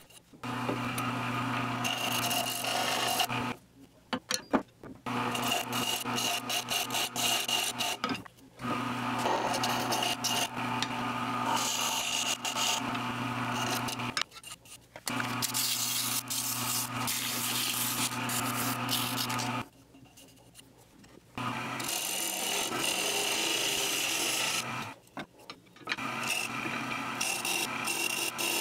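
Turning tool cutting a spinning wood handle on a wood lathe: a steady scraping hiss with the lathe motor humming underneath. It comes in several short takes that break off abruptly into near silence. Near the end, sandpaper rubs against the spinning wood.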